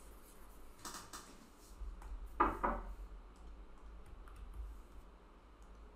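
Stylus working on a drawing tablet: a few soft taps and scrapes, the loudest a pair of taps about two and a half seconds in, over a low steady hum.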